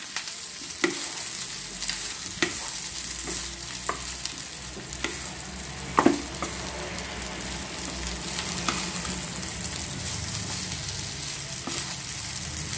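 Rice-flour balls and crushed fried chicken sizzling in oil in a nonstick pan as a wooden spatula stirs them, with a few scattered knocks of the spatula against the pan, the loudest about six seconds in.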